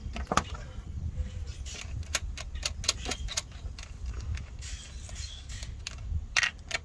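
Irregular metallic clicks and clinks of a hand tool working the nut on a trailer battery's negative terminal, disconnecting it.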